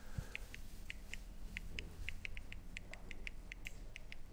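Faint, rapid clicking of a handheld presentation remote's button, pressed over and over to step back through the slides: short, high clicks at about four a second.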